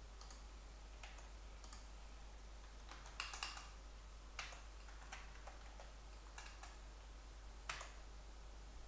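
Faint, scattered clicks of a computer mouse and keyboard, mostly single clicks spaced about a second apart with a quick cluster of keystrokes a little past three seconds in.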